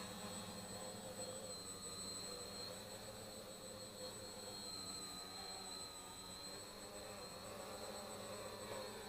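Electric motors and propellers of a small homemade 3D-printed quadcopter, a thin high whine that wavers in pitch as the throttle changes and grows fainter as it flies away.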